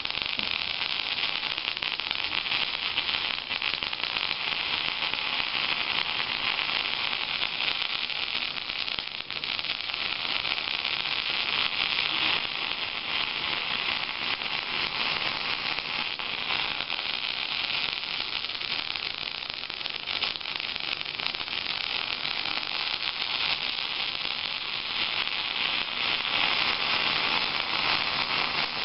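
Continuous MIG welding arc from a Miller Millermatic 251 wire-feed welder: a steady hiss with a fine crackle as the weld runs without a break.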